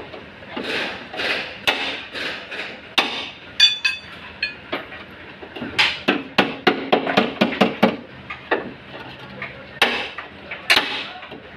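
Hammer blows on a steel bar held against a car's bent front end, knocking the collision-damaged panel back into shape. Scattered strikes, then a quick run of about ten blows midway, with a few sharp metallic clinks.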